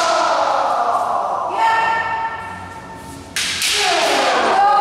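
Kendo kiai: long, sustained yells from armoured practitioners, with a sharp crack of a bamboo shinai on armour about three and a half seconds in, followed by a yell that falls in pitch.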